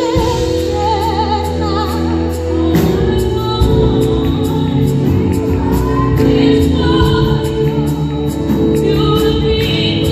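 Live gospel worship music: a group of singers, women's voices prominent, singing sustained notes with vibrato over steady instrumental backing.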